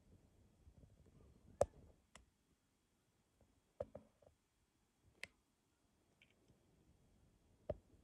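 A handful of sharp, isolated clicks, about six, the loudest about one and a half seconds in, over a very quiet background.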